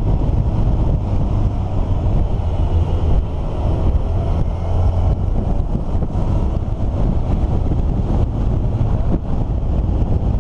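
A road vehicle under way: a steady low engine rumble under heavy wind buffeting on the microphone, with a faint engine whine rising in pitch a few seconds in.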